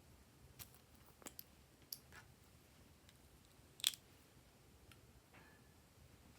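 Glossy slime being handled, giving a few faint, sharp sticky clicks and pops, the loudest about four seconds in.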